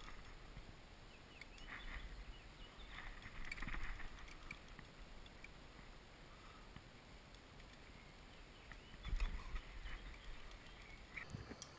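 Faint handling sounds of a carp rod and fixed-spool reel, soft clicks and rubs, over a low wind rumble on a head-mounted action camera's microphone. Handling swells about two seconds in, again around four seconds, and near nine seconds.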